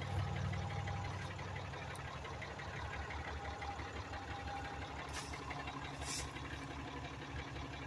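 Ram 3500 pickup engine idling steadily with an even low pulse, running again after its fuel lines were replaced. Two short hisses come about five and six seconds in.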